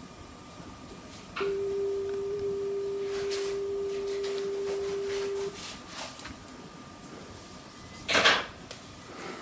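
A steady single-pitched tone from the television playing a VHS tape. It starts about a second and a half in, holds for about four seconds and cuts off suddenly. A short loud pop comes about eight seconds in, as the tape's picture comes up.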